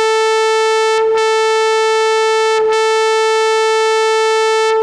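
Akai Miniak synthesizer oscillator holding a steady A at 440 Hz, its triangle waveform's shape control swept so the tone turns bright and buzzy like a sawtooth. The brightness dips twice, about a second in and again partway through, and mellows near the end.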